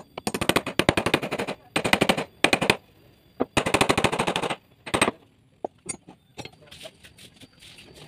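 Power screwdriver driving screws into a wooden board in about five short bursts, each a fast, even rattle of clicks, the last one brief about five seconds in.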